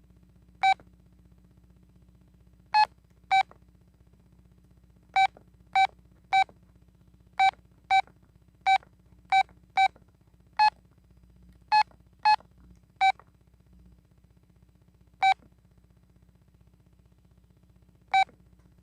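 Key-press beeps from a Telit mobile phone's keypad: about seventeen short single-pitch beeps at uneven intervals as buttons are pressed, most on the same note and a few a little higher.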